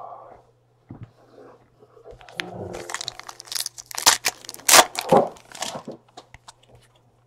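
Wrapper of a pack of baseball cards being torn open and crinkled by hand, a run of crackling rips loudest about four to five seconds in.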